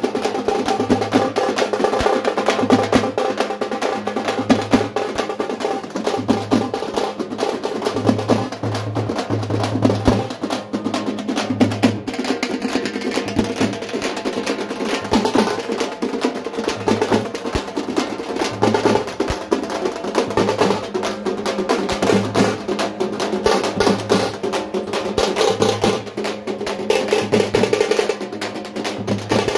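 Fast, dense drumming with many sharp strikes, going on without a break.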